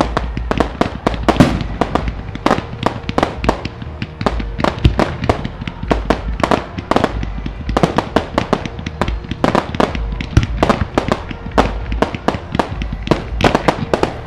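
Aerial fireworks display in a rapid barrage: sharp bangs from bursting shells come several a second without a break, over a steady low rumble.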